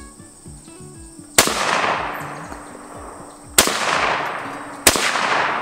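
Three shots from an SKS semi-automatic rifle, chambered in 7.62×39mm: one about a second and a half in, then two more in quicker succession near the end, each echoing and dying away over a second or more.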